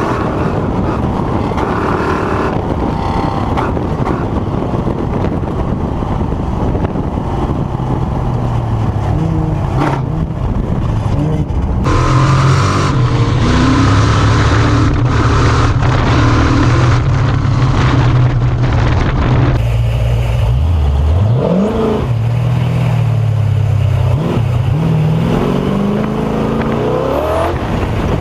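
Off-road race vehicle's engine running hard at speed, its note shifting with throttle over a constant rush of wind and rough-ground noise. About twenty seconds in the engine note drops sharply, then climbs again as it accelerates.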